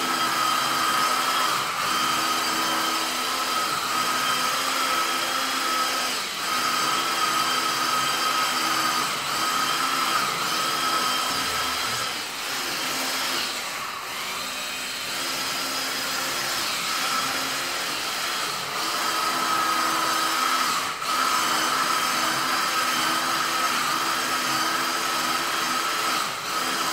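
Carpet steam-cleaning (hot-water extraction) machine running steadily: a high vacuum-motor whine, with a lower hum that comes and goes.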